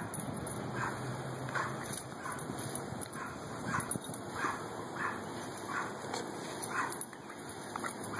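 A dog giving short, repeated yips, about one every half second to second, as it leaps and snaps at the spray from a garden hose, over the steady hiss of the water spray.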